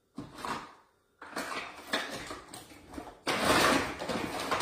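Kitchen handling noises: a drawer and utensils clattering and scraping while a spoon is fetched, with a louder scraping stretch about three seconds in.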